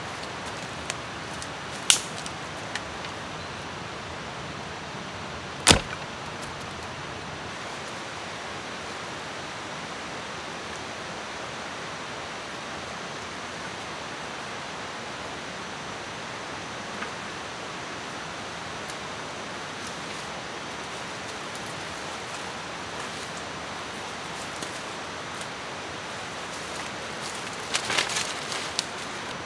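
Steady, even rushing background noise of the jungle, broken by two sharp snaps in the first six seconds, the second louder. Near the end comes a quick cluster of sharp knocks as a branch is cut with a blade.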